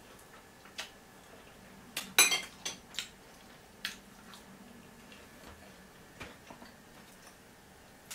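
A few light clinks and taps of a metal spoon against dishes, with the loudest cluster about two seconds in and fainter scattered clicks after it.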